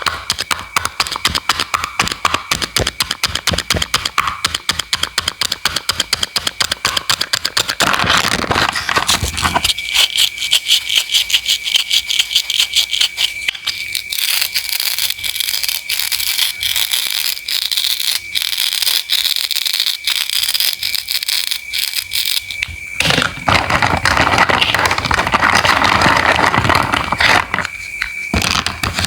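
A knife chopping rapidly through produce onto a cutting board, several crisp strokes a second. About three-quarters of the way in there is a longer stretch of scraping or rubbing.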